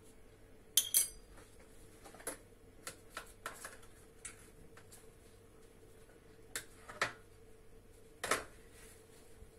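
Small metal cake moulds clinking and knocking as they are set down and shuffled on a stone countertop: a scatter of sharp clicks, loudest in a pair about a second in, with more near the middle and near the end.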